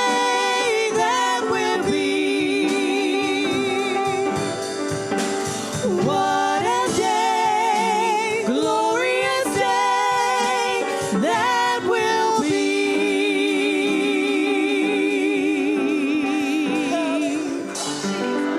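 An old gospel hymn sung with instrumental accompaniment. The singing carries long held notes with a wide vibrato, most clearly in a long held note in the second half.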